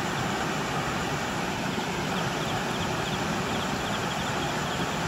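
Steady rush of flowing river water, with insects chirping faintly and repeatedly above it.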